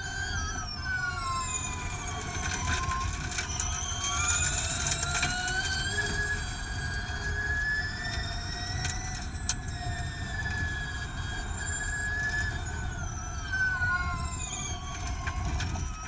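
Onboard sound of a Gen2 Formula E race car: the high electric motor and transmission whine rises in pitch as the car accelerates, holds through the middle, then falls as it slows near the end, over low road and tyre rumble.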